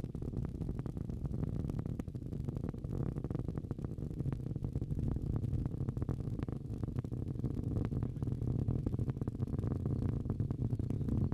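Falcon 9's nine Merlin first-stage engines in ascent: a steady low rumble with a dense crackle running through it.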